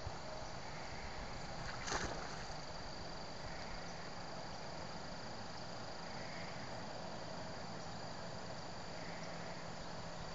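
Outdoor ambience: a steady hiss with a faint, steady high-pitched tone, and one brief sharp noise about two seconds in.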